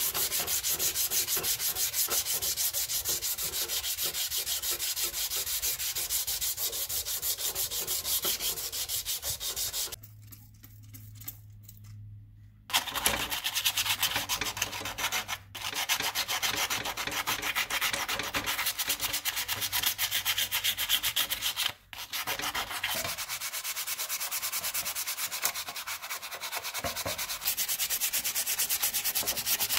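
Sandpaper rubbed by hand over an old sword's metal hilt and blade in fast, even back-and-forth strokes. The rubbing stops for a couple of seconds about a third of the way in, leaving only a low hum, and breaks off twice more for an instant.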